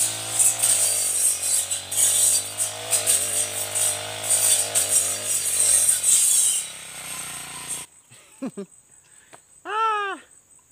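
Backpack four-stroke brush cutter running under load, its revs rising and falling as the round toothed saw blade slashes through leafy weeds and stems. It cuts off suddenly about eight seconds in, leaving only a couple of brief chirps and a short call.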